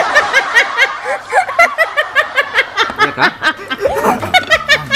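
A group of people laughing together, several voices at once.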